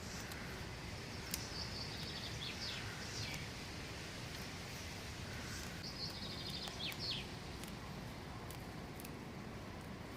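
A songbird sings two trilled phrases, each ending in quick falling notes, over a steady background hiss with a few scattered light ticks.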